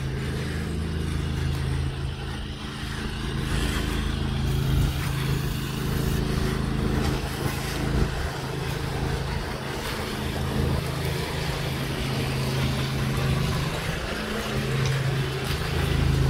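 Steady drone of a pressure-washing rig's engine and pump running, with a hiss of water spraying from a hose.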